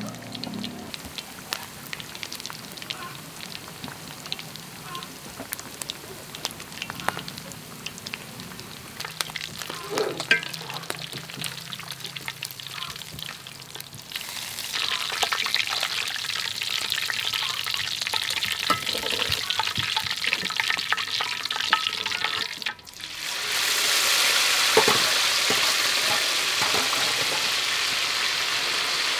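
Salmon fins deep-frying in a wok of hot oil, crackling and popping, with occasional metal clinks from a strainer. About halfway through the sizzle grows louder and hissier. After a brief break about three-quarters of the way in, it goes on as a loud, steady sizzle.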